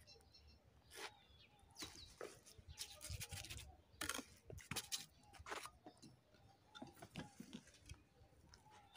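Steel trowel scraping and tapping wet cement mortar onto a brick, spreading a bed of mortar: a loose series of short, faint scrapes and taps.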